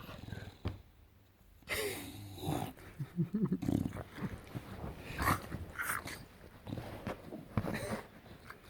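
English bulldog making weird vocal noises in short irregular bursts, some sliding down in pitch, with a brief quiet gap about a second in.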